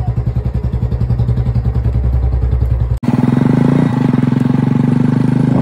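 Royal Enfield single-cylinder motorcycle engine idling with a steady, even thumping beat. About three seconds in the sound cuts abruptly to the engine running louder and steadier.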